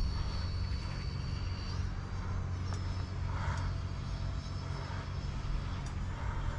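High steady whine of the UMX A-10 Thunderbolt II's twin 30 mm electric ducted fans in flight, with the pitch stepping up about two seconds in.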